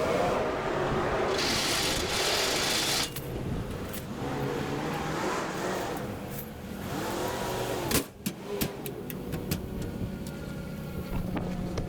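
An engine idling steadily, with a loud hiss of air lasting about two seconds near the start. About eight seconds in there is a sharp knock, followed by a run of metallic clicks and rattles.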